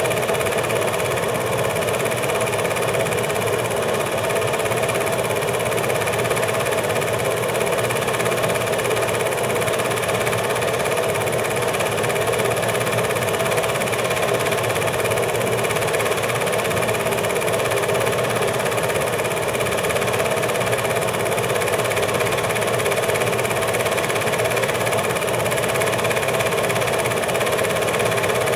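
8mm film projector running: a steady mechanical whirr at an even level, unchanged across the cuts in the picture.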